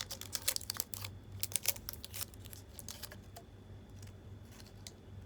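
Plastic sauce packaging being opened by hand: a run of crinkles, sharp clicks and tearing plastic, busiest in the first two seconds and sparser after.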